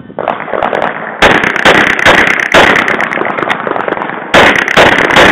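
Glock 24 pistol in .40 S&W firing a fast string of shots in a USPSA stage, several shots a second, right after the shot timer's start beep.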